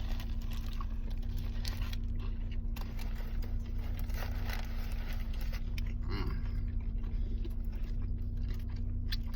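Two people biting into and chewing crispy fried chicken sandwiches, with scattered crunches, over a steady low hum.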